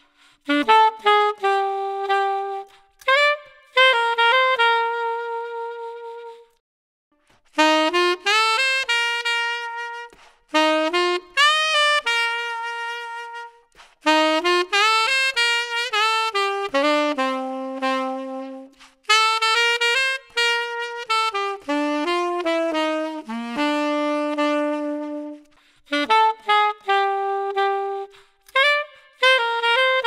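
Unaccompanied saxophone playing short jazz-style melodic phrases, the edit alternating between a Selmer Series III alto and a 1958 Selmer Mark VI tenor for a tone comparison. A single melodic line, with brief silent gaps between phrases.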